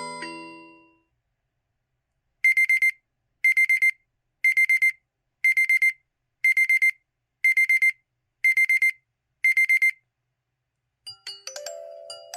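LG-T390K Wine 3G mobile phone's built-in alarm tone: a high-pitched electronic beeping in short bursts of about four quick beeps, each burst repeating once a second, eight times. A previous chime tone fades out at the start, and a new chime melody begins near the end.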